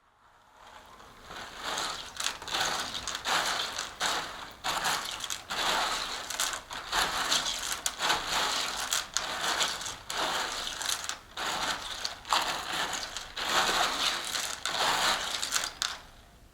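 Crunchy rustling and crackling in irregular swells, with many small sharp clicks, from hands handling material close up.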